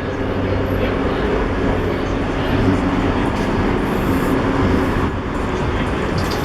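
Steady rumble of road traffic, a dense low engine hum under an even wash of noise.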